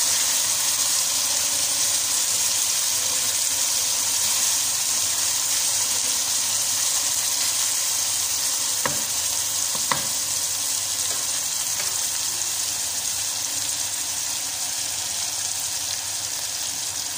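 Bitter gourd pieces sizzling as they fry in hot oil, a steady high hiss that eases slowly. A wooden spoon stirs them, with two short knocks against the non-stick karahi about nine and ten seconds in.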